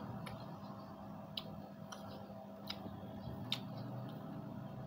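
Quiet hand-eating of sauced fried tofu from a plastic container: about five light, sharp clicks roughly a second apart, with soft mouth sounds, over a steady low hum.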